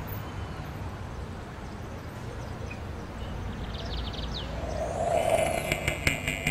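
Steady low background rumble. About five seconds in, a rising swoosh leads into the start of guitar music with an even beat.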